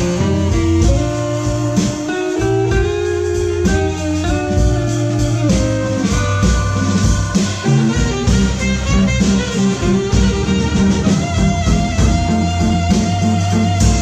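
Blues band of guitar, tenor saxophone, Hammond organ and drums playing live, with the guitar out front over a steady drum beat.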